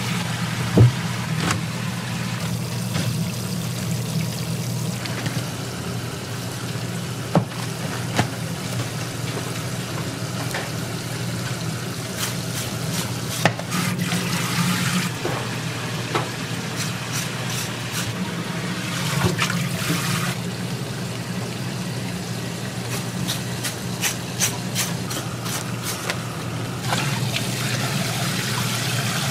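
Water running in a kitchen over a steady low hum, with scattered clicks and knocks from handling.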